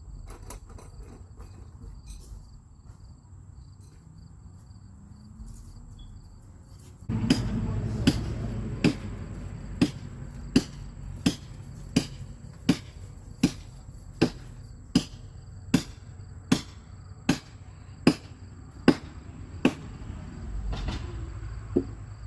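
Hammer blows struck at an even pace, roughly three every two seconds, starting about seven seconds in, over a steady trill of crickets.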